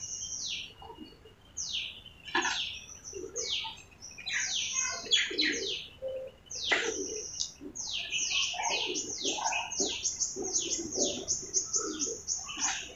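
Small birds chirping: a series of short, high calls that slide downward in pitch. They are scattered at first, then come quickly and almost without a break through the second half.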